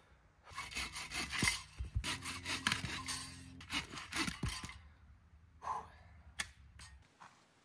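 Folding bow saw cutting through a log of wood in quick back-and-forth strokes, stopping about four and a half seconds in. A few single knocks follow near the end.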